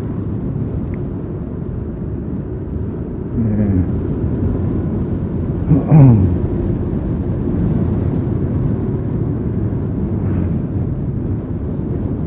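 Motorcycle running on the road with wind on the microphone as a steady low rumble. A brief louder sound falls in pitch about six seconds in, with a weaker one a little before it.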